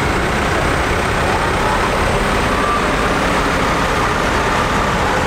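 Tractor engines running as a modern Case IH tractor drives past, followed closely by a small vintage red tractor.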